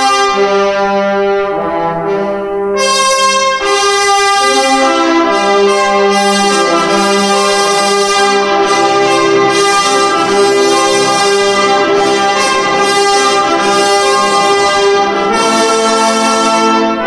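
Brass music playing slow, held chords that change every second or two.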